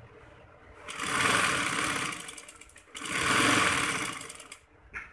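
Sewing machine stitching a seam in two runs of about two seconds and a second and a half, with a brief stop between, its needle going up and down in a fast, even rattle.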